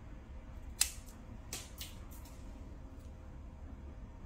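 Plier-style dog nail clippers snipping through overgrown nails: one sharp snap about a second in, then several fainter clicks, over a low steady hum.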